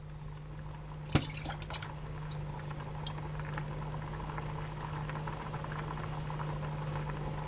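Food boiling on the stove, a steady bubbling that slowly grows louder, over a steady low hum. A sharp clink about a second in and a few lighter clinks of cookware.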